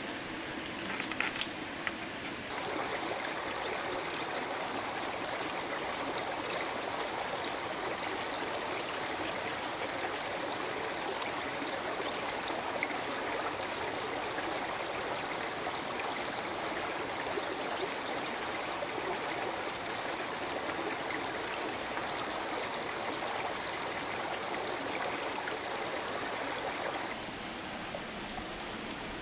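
Flowing stream water rushing steadily, coming in abruptly about two and a half seconds in and dropping away abruptly near the end; a few faint clicks come before it.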